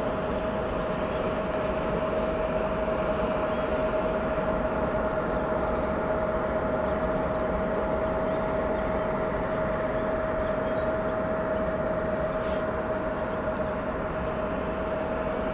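A steady drone: one constant mid-pitched hum over a broad even rushing noise, not changing at all.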